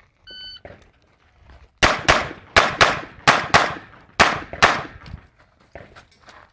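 A shot timer gives a short start beep, and about a second and a half later a handgun fires eight shots in quick pairs over about three seconds.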